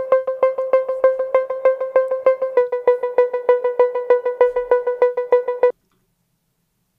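High synthesizer line playing a steady run of short plucked notes that die away quickly; it cuts off abruptly about three-quarters of the way through.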